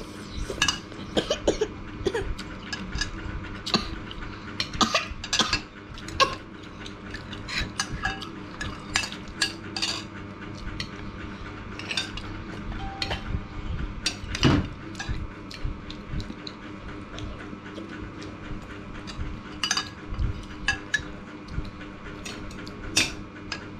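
Metal spoons clinking and scraping against ceramic plates and bowls during a meal, many short sharp clinks scattered irregularly throughout, over a steady low hum.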